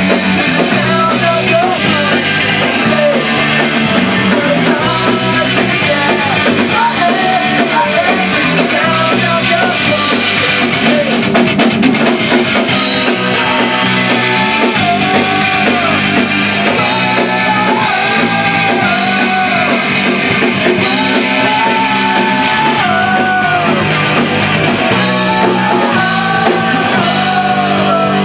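A punk rock band playing a song live in a rehearsal room: guitar, bass and drums with a voice singing over them, loud and steady.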